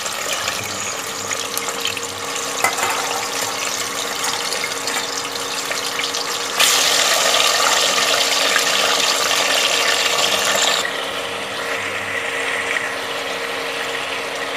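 Marinated chicken sizzling as it fries in hot oil in a pressure cooker, a steady hiss that turns louder for about four seconds midway and then settles back.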